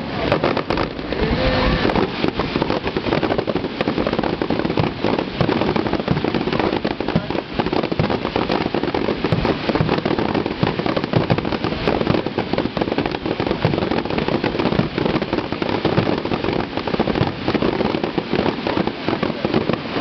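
Fireworks going off in a dense, continuous barrage, with many bangs and crackles overlapping.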